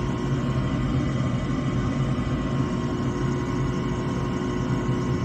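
Gas furnace running steadily, its draft inducer motor humming with a constant multi-tone drone that does not change.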